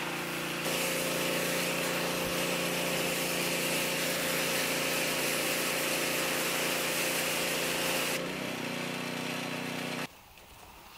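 Pressure washer running with a steady motor hum, its water jet hissing as it sprays down the aluminium interior skins. The spray stops about eight seconds in while the machine keeps humming, and then the sound drops away near the end.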